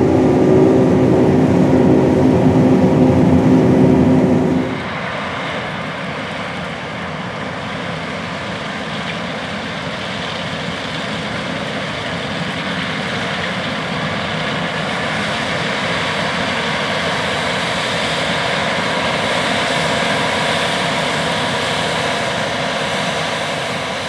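Steady hum of the John Deere S790 combine heard inside the cab while harvesting, with a few steady tones. About five seconds in it changes abruptly to the combine and the tractor pulling the grain cart heard from outside while harvesting and unloading. That part is a steady, even machinery rush that swells slightly later on.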